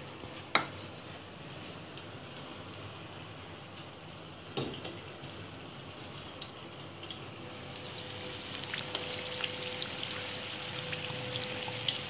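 Hot oil sizzling and crackling as samosas deep-fry, a steady fizz dotted with small pops. Two sharp clicks cut through it, about half a second and about four and a half seconds in.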